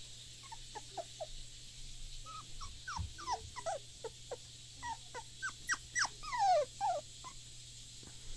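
Young puppy whimpering: a string of short, high whines that mostly fall in pitch, sparse at first, then coming quicker and louder toward the end.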